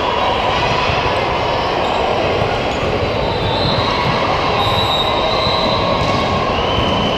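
Steady, loud din of a large indoor multi-court volleyball hall: many voices and activity blending into a reverberant roar, with a few faint high squeaks drifting through it.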